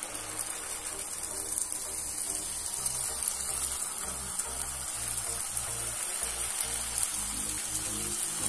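Papdi dough rounds deep-frying in hot oil in a pan: a steady sizzling hiss with small crackles throughout.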